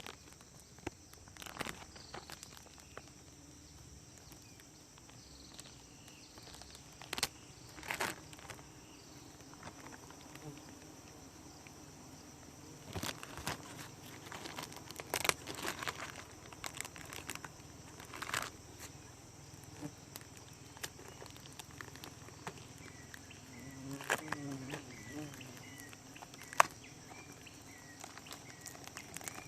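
Scattered clicks and knocks of a stingless bee hive's topping box being opened and handled, over a steady high insect chirring.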